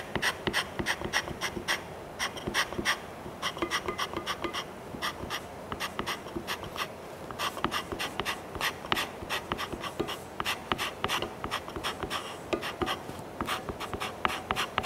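A hand scraper being pull-scraped across the Turcite plastic liner on a lathe saddle's bottom ways, in quick short strokes, several a second. Each stroke shaves off the blued high spots to raise the bearing contact of the ways.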